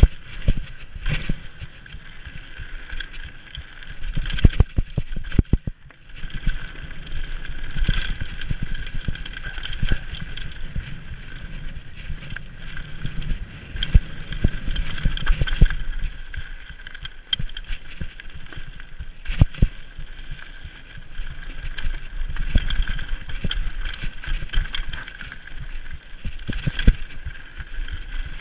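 Mountain bike riding fast down a loose gravel and rock trail: tyres crunching over stones, with frequent sharp knocks and rattles as the bike hits bumps, and a steady high buzz underneath. Wind on the camera microphone adds a low rumble.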